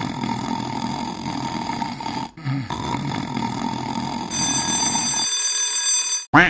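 Alarm clock bell ringing, with a short break about two seconds in and a brighter, higher ring from about four seconds in; the ringing wakes the sleeping cartoon cat.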